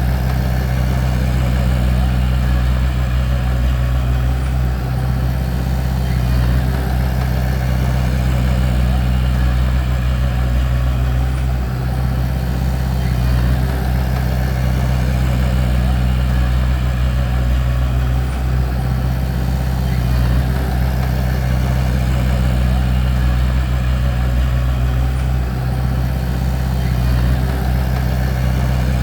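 Bulldozer diesel engine running steadily at a constant speed, with no revving.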